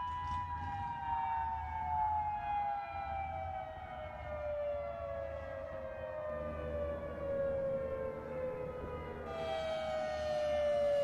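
Outdoor civil defense warning siren sounding the nuclear attack warning, one long tone falling slowly in pitch. About nine seconds in it jumps back up and falls again. A low rumble sits underneath.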